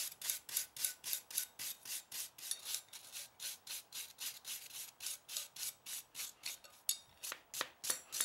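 Hand abrasive block rubbed rapidly back and forth along a forged rebar steel blade clamped in a vise, giving a steady rasping scrape of about three to four strokes a second, with a few sharper clicks near the end.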